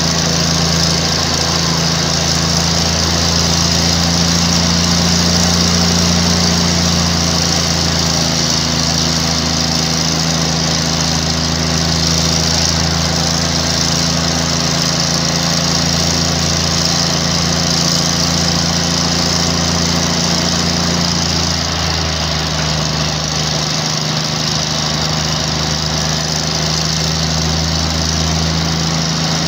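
Diesel engine of a GE 80-ton center-cab switcher locomotive, a Cummins, running steadily under load as it pulls the train. It is working on only one of its two engines after the other failed. Its note drops slightly about two-thirds of the way through as it eases off.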